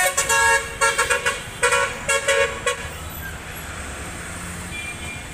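Vehicle horn honking in a string of short repeated blasts through the first three seconds or so, then the steady rumble of street traffic.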